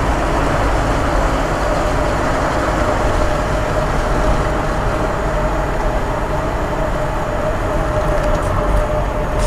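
Wartburg 353W's three-cylinder two-stroke engine and road noise, heard from inside the cabin while driving at a steady pace, with a steady whine running underneath.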